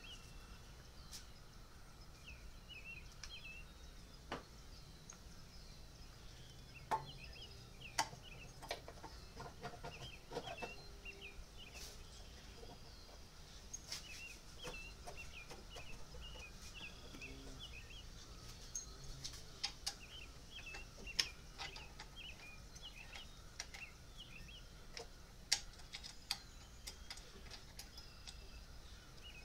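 Birds chirping faintly and repeatedly, with scattered sharp clicks and clinks of metal parts being handled as a replacement engine torque strut is fitted and bolted to a Toyota Sienna's V6 engine.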